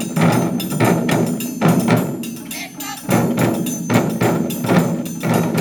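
Taiko drum ensemble playing a quick run of strokes, with a bright metallic shimmer over the drumming and a brief lull about three seconds in.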